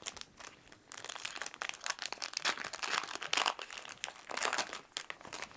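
Foil Yu-Gi-Oh booster pack wrapper crinkling as it is handled and opened, a dense run of sharp crackles starting about a second in.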